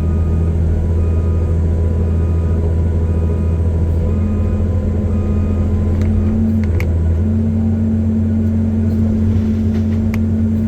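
CAT 320C excavator's diesel engine running hard and steady while the machine tracks forward under load against a tree. A faint repeated beeping sounds over the first few seconds.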